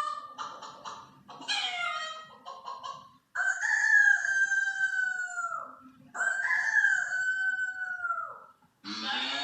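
Chicken calls: a few short clucks in the first three seconds, then two long crowing calls, each about two and a half seconds, that drop in pitch at the end.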